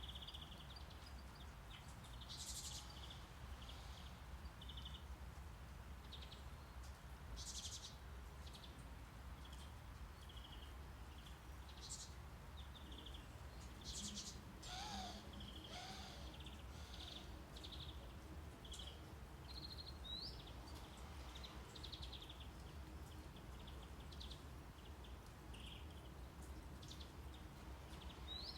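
Faint birdsong, scattered short chirps and trills, over a steady low rumble of brown noise.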